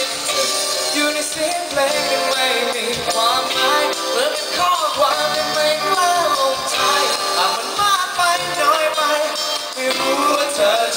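A band playing a pop-rock song with a sung lead vocal over the instruments.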